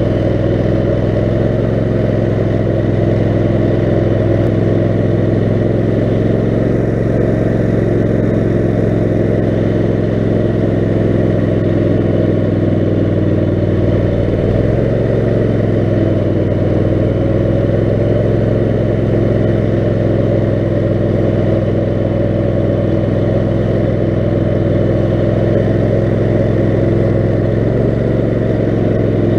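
Lawn mower's Kohler 18 HP Command engine running at a steady speed, with a brief dip in pitch about halfway through.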